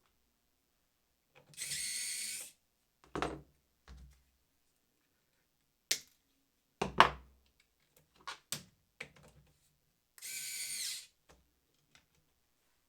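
4 V cordless electrician's screwdriver (Parkside PASD 4 C3) running in two short bursts of about a second each, a steady high whine as it drives terminal screws. Between the bursts come short clicks and knocks of handling, the loudest a sharp knock about seven seconds in.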